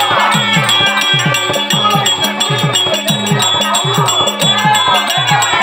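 Therukoothu accompaniment: a laced barrel drum plays a fast, steady rhythm of about four strokes a second, with bass notes that drop in pitch. Small hand cymbals jingle in time over a steady held tone.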